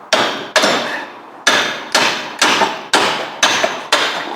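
Hammer blows on steel while working a Renault Clio's front suspension joint, eight sharp strikes with a short metallic ring after each. Two come quickly at the start, then after a pause the rest fall about every half second.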